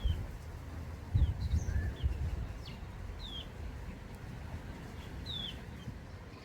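Small garden birds calling: scattered short chirps that slide downward, coming every half second or so, over a low rumble.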